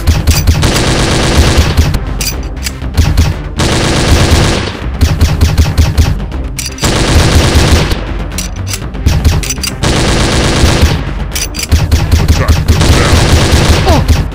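Dubbed-in automatic-gunfire sound effects: several long bursts of rapid shots with short breaks between them, over background music.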